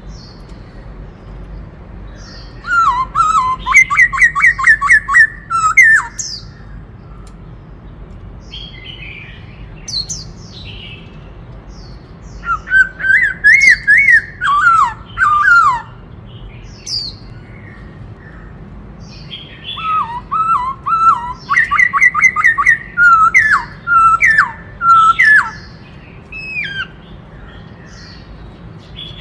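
Black-throated laughingthrush singing: three bouts of fast, repeated whistled notes with sharper high notes mixed in, separated by pauses of several seconds.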